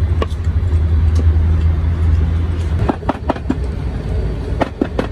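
Low, steady engine rumble of a passing road vehicle for about three seconds. As it fades, a run of sharp knocks and clicks sets in.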